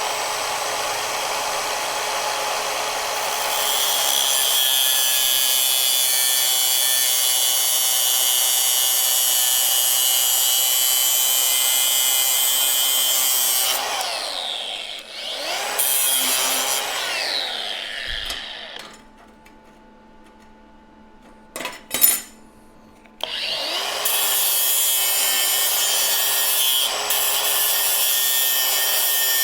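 Handheld grinder working laser-cut steel to trim a part to fit: a loud, steady grinding hiss over the motor's whine. Around the middle it winds down and back up unevenly and then stops for a few seconds, broken by one sharp click. It spins back up and grinds on steadily.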